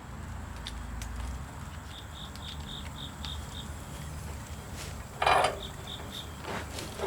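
A cricket chirping in short runs of evenly spaced high chirps, about five a second. A little over five seconds in comes one sharp clank, with a few faint clicks around it.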